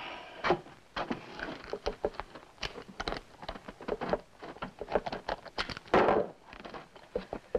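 Scattered metal clicks and knocks as a key is worked in a leg iron and the shackle and chain are taken off a man's ankle, with a louder clatter about six seconds in.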